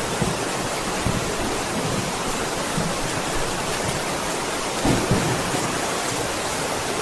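Steady rain falling, an even hiss, with short low rumbles of thunder scattered through it, the strongest about five seconds in.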